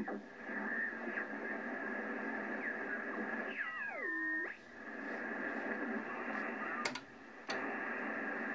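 Trio JR-599 communications receiver's speaker giving sideband static hiss with a steady whistle while the dial is tuned. Midway a whistling tone slides sharply down in pitch as the tuning sweeps across a signal. Near the end come two clicks about half a second apart, with the audio nearly cutting out between them.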